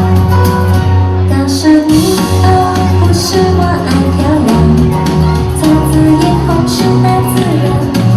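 Upbeat recorded song: a melody over steady bass notes and a regular percussion beat.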